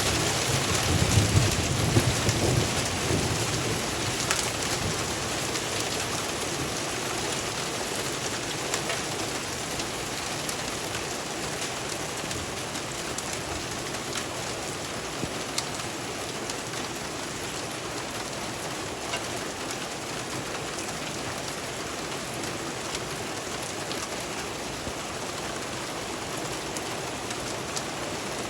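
Hail and rain falling steadily, an even hiss dotted with sharp ticks of hailstones striking. A low rumble of thunder sounds in the first few seconds, the loudest part, and the downpour eases slightly after it.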